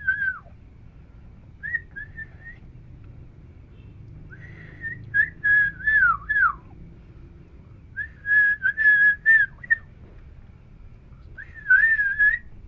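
A person whistling through pursed lips: several short phrases of a few notes each, with pauses of a second or two between them, some notes dipping down in pitch.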